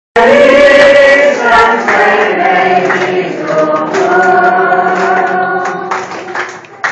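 A small group of mostly women's voices, with a man's among them, singing a Chinese Christian hymn together in long held notes. The singing cuts in abruptly at the start and thins out near the end.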